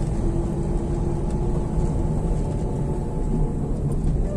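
Vehicle engine and road noise heard from inside the cabin while driving along a paved street: a steady low rumble with a faint hum.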